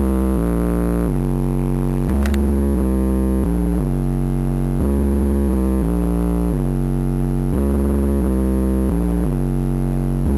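Bass-heavy synthesizer music played through two 10-inch Rockford Fosgate Punch Stage 1 subwoofers in a car cabin. The subs are being broken in at moderate volume. Deep bass notes are each held for about a second and shift pitch in a repeating pattern.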